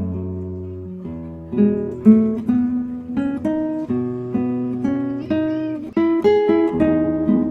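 Background music: an acoustic guitar playing a steady run of plucked notes and strums.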